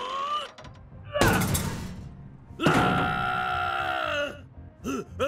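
Cartoon sound effects: a short rising grunt at the start, a heavy thud about a second in, then a long drawn-out groan, over light music.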